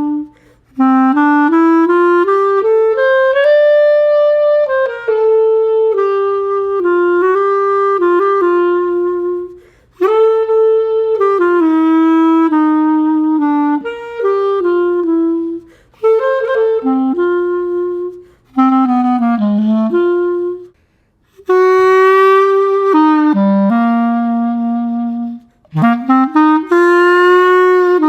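Buffet Festival professional clarinet played solo: a single line of melodic phrases, broken by several short pauses for breath.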